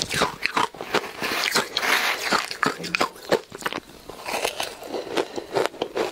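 Close-miked crunching and chewing of powdery ice dusted with matcha powder, a dense, irregular crackle of crunches. There is a short lull about four seconds in as a fresh spoonful goes into the mouth, then the crunching picks up again.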